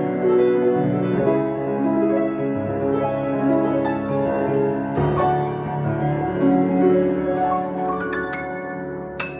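Piano playing slow, sustained chords with a melody above, growing gradually quieter toward the end. A single sharp click sounds near the end.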